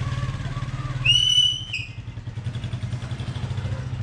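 Honda CD 80 motorcycle's small single-cylinder four-stroke engine running steadily as the bike rides off, with a short flat beep of a horn about a second in.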